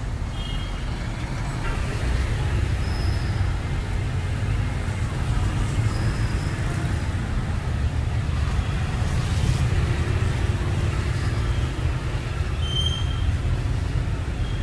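Steady rumble of city street traffic, with a few brief high-pitched squeaks scattered through it.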